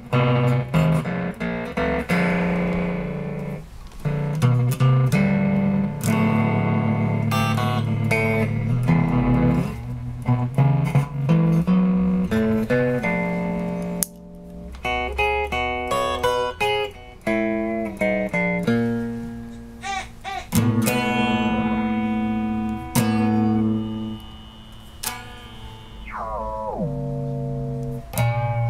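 Electric guitar played through Fairfield Circuitry effects pedals: a run of notes and chords with a short break about halfway, and a note sliding down in pitch near the end.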